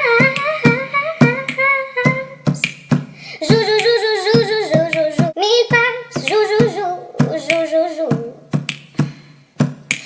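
A child singing a bouncy melody over steady hand-beat percussion, sharp hits about twice a second.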